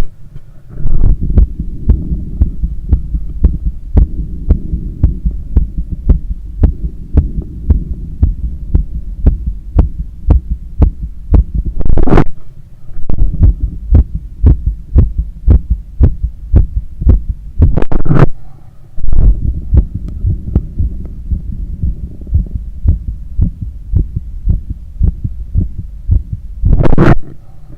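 Human heartbeat heard through a stethoscope on the chest: a quick, regular run of low thumps from a heart still recovering after a long run. Three times a brief, louder rush of noise breaks over the beats.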